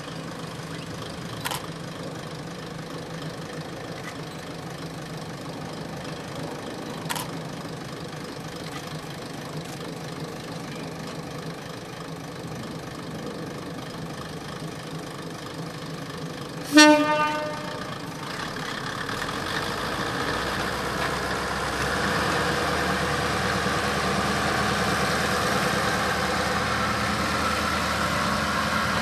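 Kominato Railway diesel railcar idling, then giving one short, loud horn toot about two-thirds of the way through. After the toot its diesel engine runs louder and keeps building as the railcar moves off.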